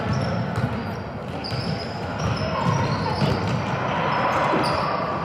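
Sounds of a game in play in a gym: a ball bouncing on the floor, short high squeaks scattered throughout, over a steady murmur of crowd chatter.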